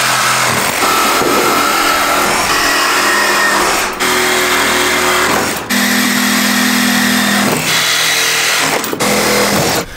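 Cordless reciprocating saw cutting through a metal radiator pipe. It runs steadily with a shifting pitch and stops briefly about four and six seconds in and again near the end.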